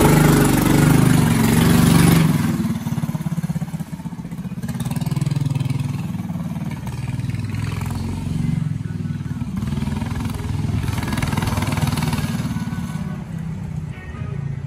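Small Honda engine on a go-kart running. It is loud for the first couple of seconds, then rises and falls in loudness as the revs and distance change.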